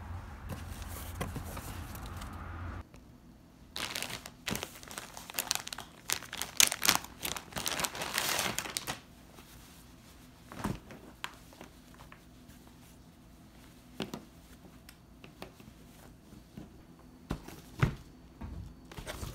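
Packaging being opened and handled: plastic and paper crinkling and tearing, densest in the middle, then scattered rustles and taps. A low steady hum runs under the first few seconds.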